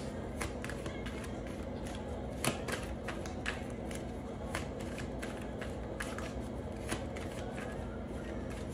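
Tarot cards being shuffled and handled: soft, irregular clicks and slaps a few times a second, over a faint steady low hum.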